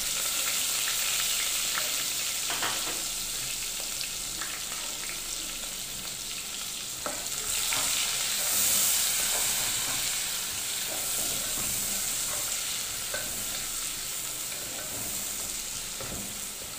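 Sliced onions sizzling in hot oil in a metal pot as they start to fry, stirred with a wooden spoon. A few short scrapes and taps of the spoon against the pot come through the steady sizzle.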